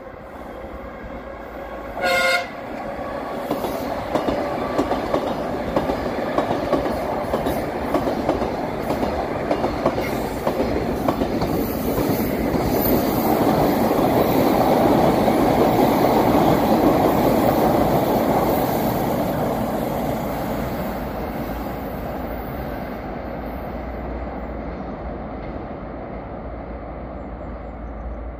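Moscow Metro train giving one short horn blast about two seconds in as it approaches, then passing on open track: wheels clicking over the rail joints, the rumble growing loudest midway and fading as it moves off.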